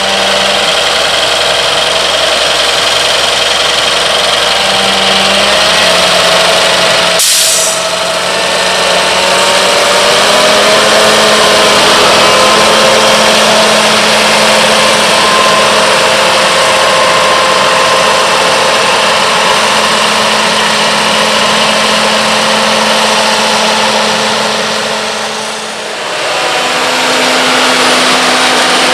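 Diesel engine of a John Deere 4730 self-propelled sprayer running steadily, its pitch drifting slightly up and down.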